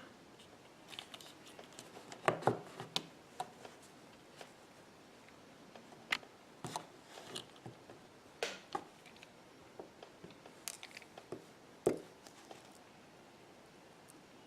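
Scattered light clicks and taps of a precision screwdriver and small tools on an iPhone 6 as the two tiny screws of the battery connector cover are fitted.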